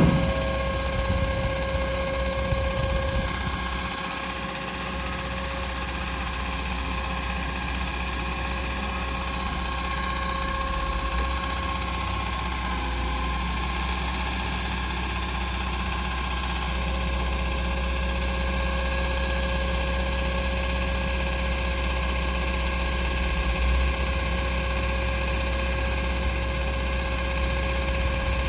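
Truck-mounted hydraulic crane working as it lifts a steel pole: a steady engine drone under a hydraulic whine, the whine's tone shifting a couple of times as the crane moves.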